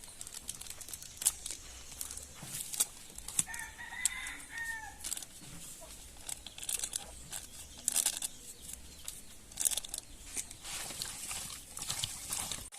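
A rooster crows once, about three and a half seconds in, over scattered clicks and rustling from the seasoning of chicken.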